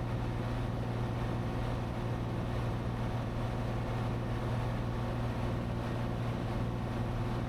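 Cessna 182T's six-cylinder Lycoming engine and propeller at steady cruise, a constant low drone heard in the cabin.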